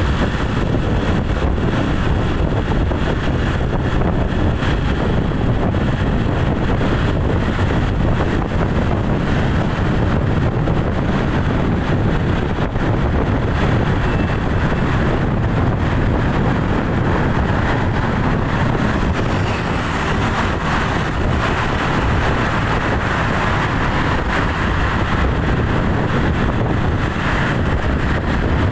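Steady road noise from a moving vehicle, with wind rushing over the microphone and no engine note standing out.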